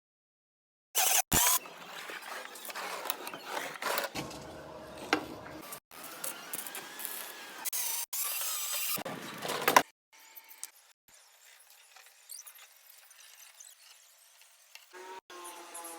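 Metalworking tool noise, squealing and rasping, in a run of short clips that cut off abruptly. It is fainter for a few seconds from about ten seconds in.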